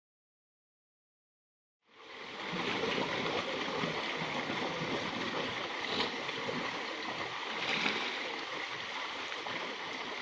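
Silence for about two seconds, then a steady rush of stream water pouring past a low concrete weir into a pool, with a couple of brief splashes from a person swimming in it.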